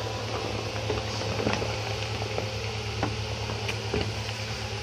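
Steady low hum with a hiss over it, and scattered faint clicks and ticks.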